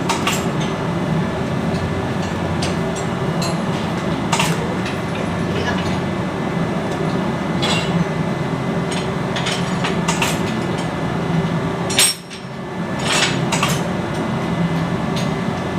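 Metal tools clinking and knocking on turbocharger parts at irregular intervals over a steady low machinery hum.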